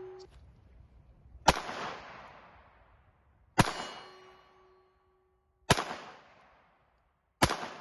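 Mauser 1914 .32 ACP pistol fired four times in slow single shots, about two seconds apart, each shot followed by a fading echo. After some shots a steel target rings with a steady tone.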